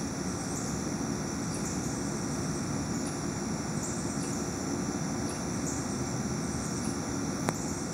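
Steady outdoor background rumble with a thin, steady high-pitched hiss and faint high blips about once a second; a single sharp click near the end.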